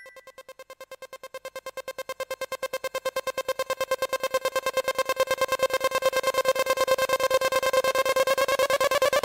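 Electronic background music: a single synthesizer note repeated rapidly, about ten pulses a second on one pitch, growing steadily louder throughout.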